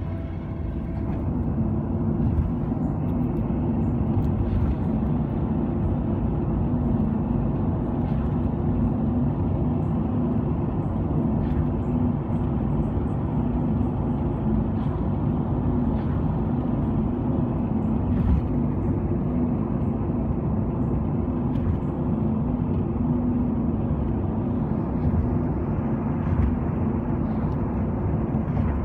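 Steady running noise from inside a moving vehicle: a low rumble with a constant hum and a few faint clicks.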